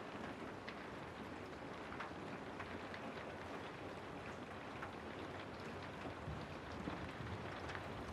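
Steady rain falling through forest trees: an even hiss with individual drops ticking on leaves and surfaces, and a faint low rumble coming in near the end.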